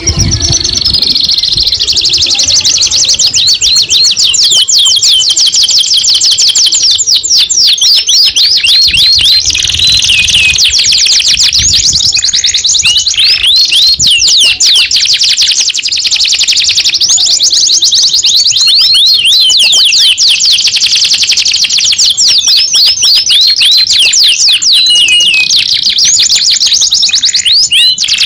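Canary singing a long, unbroken song of rapid, high trills: fast runs of repeated sweeping notes that keep changing pattern, loud and almost without pause.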